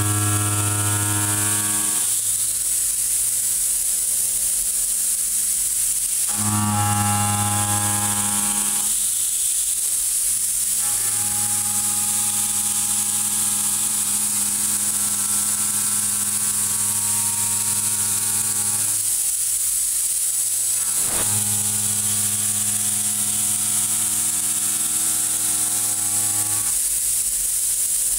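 Kennametal Mill 4-12 KT tangential shoulder mill roughing 4140 steel: a steady pitched drone while the inserts are in the cut. The drone drops out and comes back three times as the cutter leaves and re-enters the work, over a constant high hiss.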